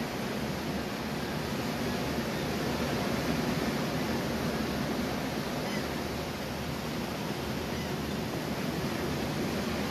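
Ocean surf breaking and washing up on a sandy beach: a steady rushing noise that swells slightly a few seconds in and eases again.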